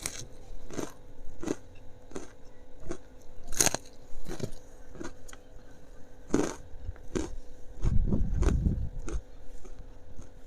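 Close-miked chewing: a series of sharp, crunchy bites and chews of food, with a low rumble about eight seconds in.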